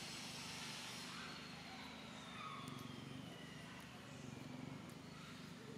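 Faint hum of a motor vehicle engine, with a thin whine that slides slowly down in pitch over a couple of seconds. A high hiss fades out about a second in.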